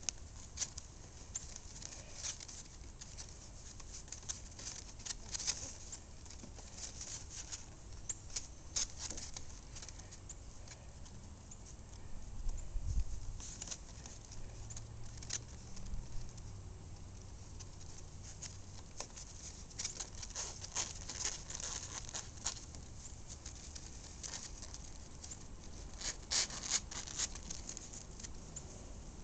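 Bedlington Terrier puppies' paws and claws tapping and scuffling on a raised dog cot and grass: a scatter of light, irregular ticks, busier at a few moments. A low rumble rises briefly about halfway through.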